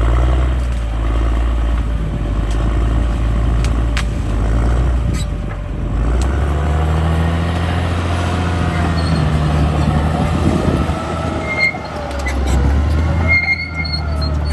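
Caterpillar D6R bulldozer's diesel engine running steadily under work, its note shifting about six seconds in. A few sharp clicks and a wavering squeal run over it in the second half.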